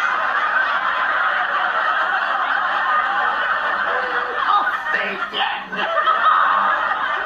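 Long, hard laughter: a breathy, hissing laugh at first, breaking into pitched chuckles about four seconds in.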